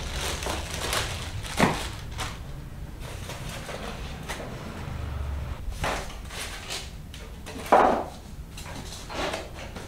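Styrofoam packing and plastic wrap handled while a monitor is lifted out of its box: rubbing and rustling with scattered knocks, the loudest a bump nearly eight seconds in.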